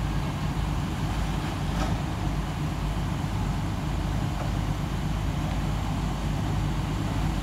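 Engine of heavy construction equipment running steadily with a low hum. A faint click sounds about two seconds in.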